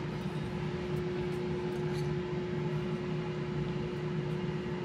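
Steady electric hum of a running household appliance or fan motor, with one constant mid-pitched tone over a low drone.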